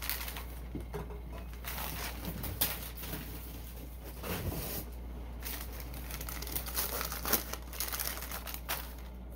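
Crinkly packing wrap around a beer glass rustling and crackling in irregular bursts as the glass is lifted out of a box and unwrapped.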